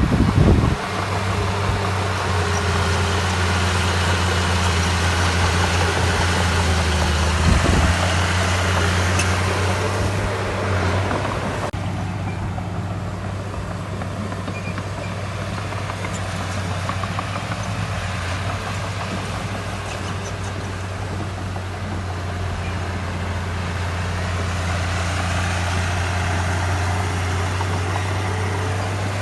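Diesel engine of heavy earthmoving machinery running steadily with a deep hum. It works harder and louder for the first ten seconds or so, with a knock at the start and another about eight seconds in, then settles to a quieter run.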